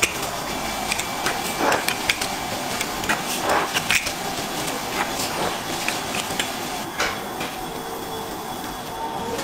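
Scattered light knocks, clicks and short scrapes of hands and a flat blade working a sheet of food on a tray, busiest in the first half; a faint steady hum comes in near the end.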